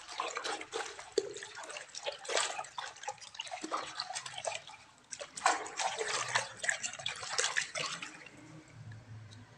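Hands squeezing and kneading wet clay in a plastic tub of water. Quick, irregular splashing and sloshing that thins out about eight seconds in.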